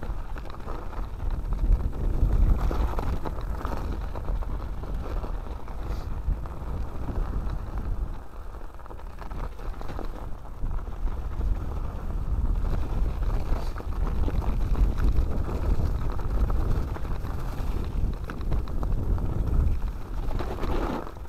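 Mountain bike ridden along a snowy woodland trail, heard through a handlebar-mounted camera: a steady low rumble of wind on the microphone and tyres rolling over snow and dirt, with occasional knocks and rattles from the bike.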